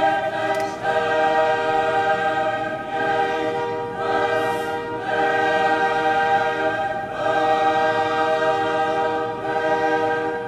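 Choir-like music: sustained vocal chords, each held for a second or two before changing to the next.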